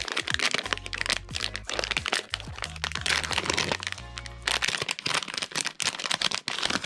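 Foil blind-box bag crinkling and crackling as it is handled and torn open. Background music with a steady bass line plays underneath.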